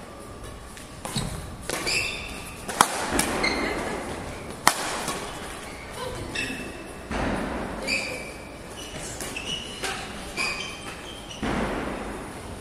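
Badminton rally in a sports hall: two sharp racket-on-shuttlecock hits about two seconds apart among softer strokes, with players' shoes squeaking repeatedly and footsteps thudding on the court floor.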